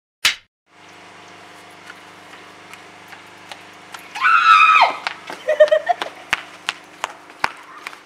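A clapperboard snaps shut once near the start. About four seconds in, a woman screams loudly for about a second, the pitch falling at the end, then lets out a few short cries, followed by quick slapping footsteps in sandals, about three a second, as she runs.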